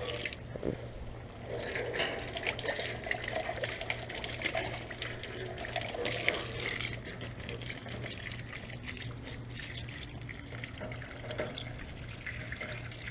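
Water from a hose spraying and splashing against an outdoor central air conditioner unit as its coil is washed clean, with a continuous hiss and irregular spatter.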